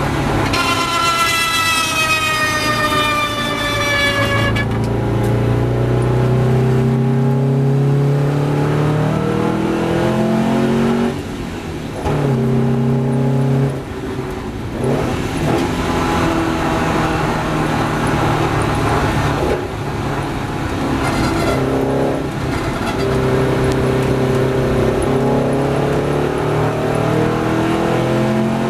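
1954 Porsche 550 Spyder's four-cam flat-four engine at racing pace, heard from the passenger seat, its revs rising and falling through the gears. There are short drops in level about a third and halfway through, where the driver lifts or changes gear.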